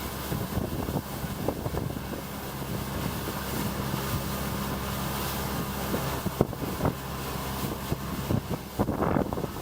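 A boat's motor running steadily, with wind buffeting the microphone. A sharp knock comes about six seconds in.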